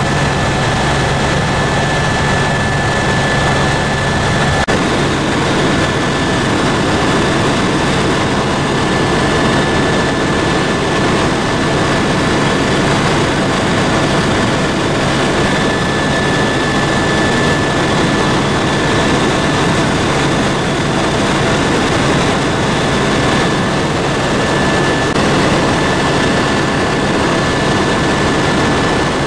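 Tour helicopter in flight heard from inside the cabin: its turbine engine and rotor make a loud, steady noise with a constant high whine over a low hum.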